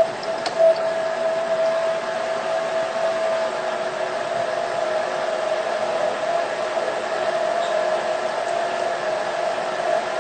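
Electric blender motor running steadily with a constant whine, blending chickpeas and tahini into hummus.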